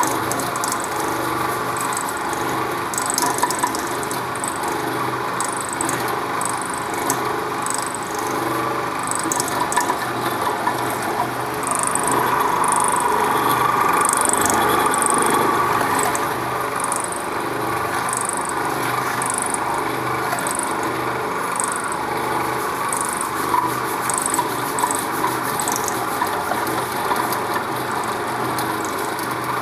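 Electric fish waste grinder with a 1 hp single-phase motor running steadily under load, grinding fish waste as it is fed into the hopper. It runs a little louder for a few seconds near the middle.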